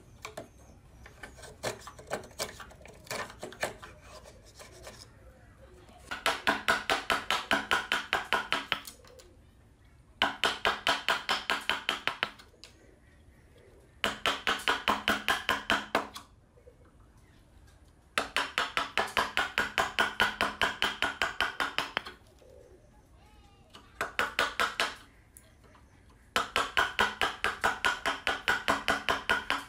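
Hand file rasping on wood: light, irregular scraping at first, then rapid back-and-forth strokes, about five a second, in bursts of two to four seconds separated by short pauses.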